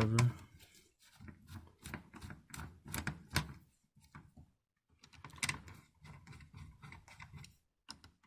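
Hands handling desktop computer parts: scattered clicks, taps and short rustles of plastic and metal, with a brief pause about halfway through.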